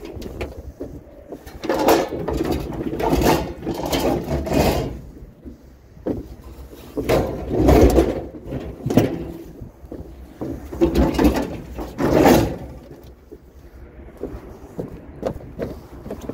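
Things being handled and moved about: irregular scraping, rattling and knocks in several loud bursts, quieter near the end.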